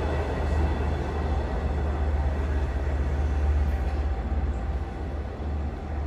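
Long Island Rail Road trains running through the station: a steady low drone under the rumble of wheels on rails, easing off a little near the end.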